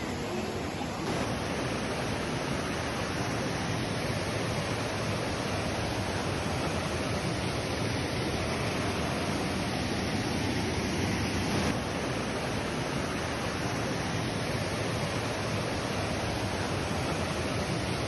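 Steady rush of water from a rocky stream's rapids and small cascade, a constant even hiss with no breaks.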